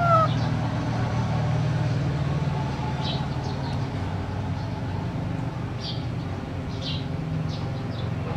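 Steady low mechanical hum, like a running engine, with a short falling squeak right at the start and a few faint high chirps in the second half.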